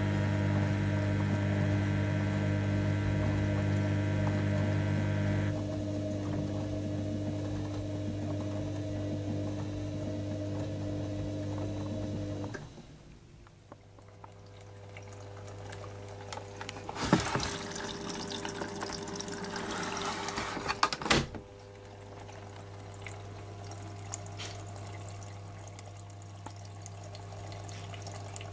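Vestel-built Panasonic front-loading washing machine with its drum spinning and the motor humming; the hum thins about five seconds in and the spin stops about twelve seconds in. Then water rushes into the drum as it fills, loudest for a few seconds in the middle, over a steady hum.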